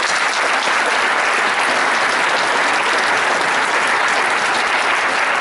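Audience applauding steadily, welcoming a speaker who has just been introduced.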